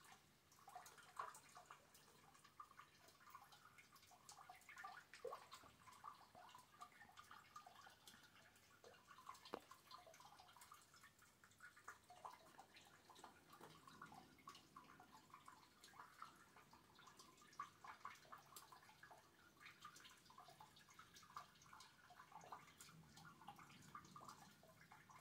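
Faint rainwater dripping: many small, irregular drips and ticks.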